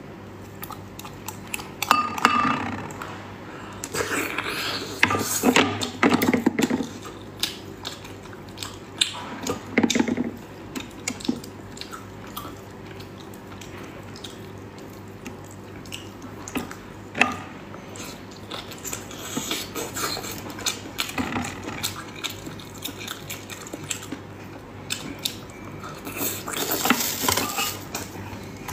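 Close-miked eating sounds: sea snail meat squelches wetly as it is pulled from the shells and chewed, with irregular clicks and knocks of shells and chopsticks against the dish. The noises come in bunches with quieter stretches between.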